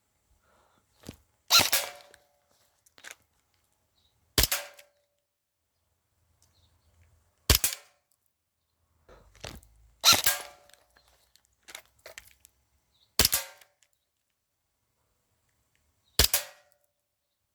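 Airsoft gun firing single shots, about six sharp cracks roughly three seconds apart, with fainter clicks of gun handling in between.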